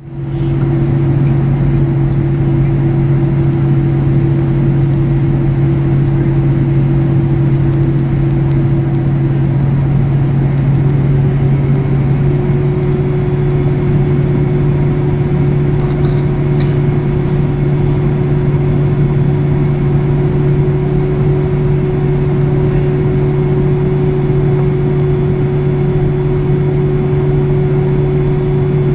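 A steady machine drone, loud and unbroken, with a low hum and a higher tone above it. The higher tone steps up a little about ten seconds in.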